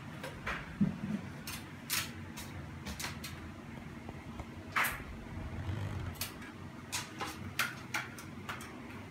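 Irregular small clicks and knocks from a Hunter Pacific Aurora ceiling fan's fittings being handled at the motor housing and blade arms during installation, with one louder knock about halfway through.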